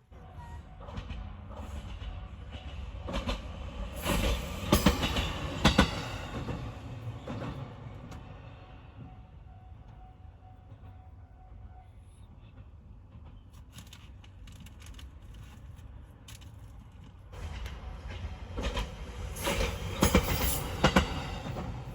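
Train passing a level crossing, its wheels clacking over the rail joints. The clacks are loudest about four to six seconds in, fade to a low rumble, then build again near the end.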